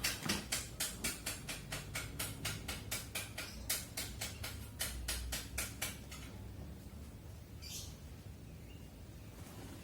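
A rapid, even series of short, high chirps, about four a second, that stops about six seconds in; a single short high chirp follows near the end.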